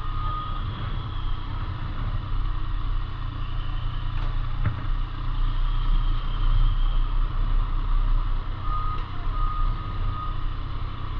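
Steady low rumble of a running vehicle on the move. A thin, steady high beep sounds briefly at the very start and again twice near the end.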